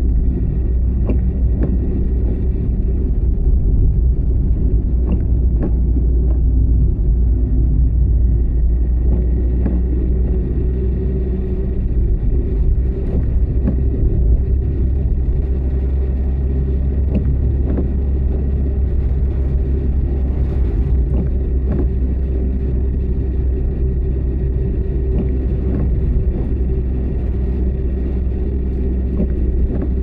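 Steady low rumble of a car driving, with scattered faint ticks.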